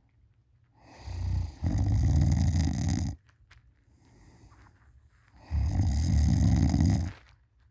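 A person snoring loudly while sleeping on their back: two long, low snores of about two seconds each, a few seconds apart, with a faint breath between them.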